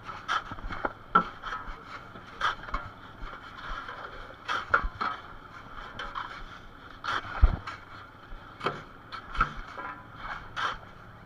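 Shovels scraping and scooping crushed ice off the deck and tipping it into a fish box, in irregular strokes about every second. There is a heavier knock about seven seconds in, over a steady background drone.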